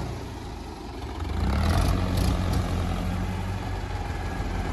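Diesel engines of two Mahindra tractors running under load while freeing a mired tractor and its loaded trolley, getting louder about a second in and then holding steady.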